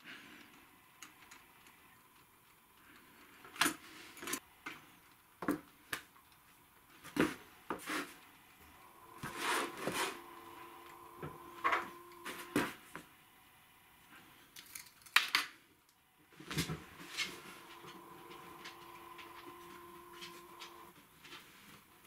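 Objects handled and set down on a wooden work board: a scattered series of sharp knocks and clicks from a glass cylinder, metal calipers and birch log rounds, with a faint steady tone in the background in the later part.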